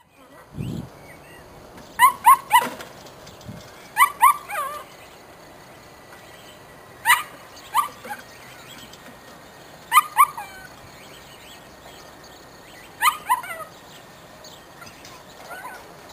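A puppy yapping in short groups of two or three high yips, about every three seconds, with a low thump under a second in.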